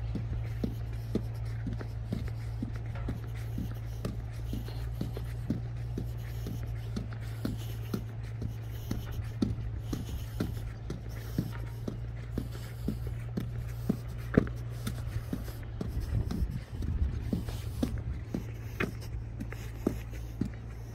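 Footsteps of someone walking at a steady pace down a paved concrete boat slipway, about two steps a second, over a steady low hum.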